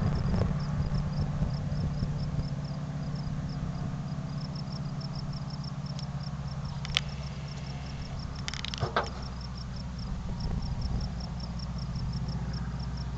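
Radial engine of a Grumman Ag Cat biplane in low flight, giving a steady low drone that is loudest at the start and eases off a little after the first couple of seconds.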